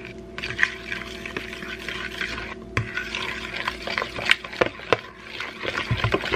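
A metal fork stirring melted butter into mashed banana in a mixing bowl: a continuous wet scraping, with the fork clinking against the bowl several times, more often in the second half.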